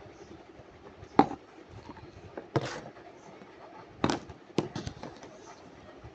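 Slime and its plastic tubs being handled: a few sharp clicks and short pops, the loudest about a second in, with others around the middle.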